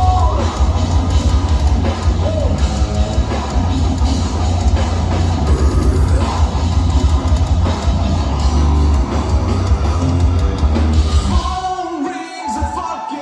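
Heavy metal band playing live, with heavy drums, distorted guitars and bass under the singer's voice. About a second and a half before the end the drums and bass stop, and the voice carries on almost alone.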